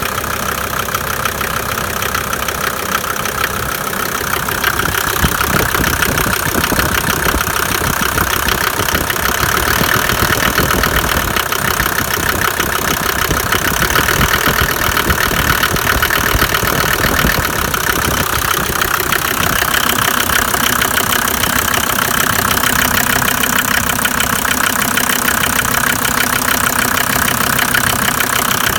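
Mercedes-Benz OM605 five-cylinder diesel idling unevenly with an irregular knocking clatter; it gets slightly louder about five seconds in. The rough running and the knock persist despite new injector nozzles and injection-pump lines, and the owner has not found the cause.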